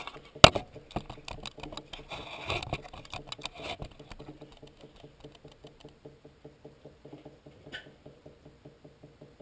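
Knocks, scraping and small clicks from digging into a clogged kitchen sink drain: a sharp knock about half a second in, a spell of scratchy scraping, then faint rapid ticking.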